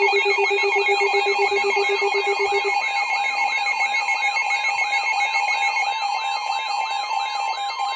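Several electronic emergency alert tones sounding at once, signalling an incoming severe thunderstorm warning. A steady pair of high tones runs under a warbling tone above, with a siren-like rising sweep repeating about three times a second; a low pulsing tone drops out about three seconds in.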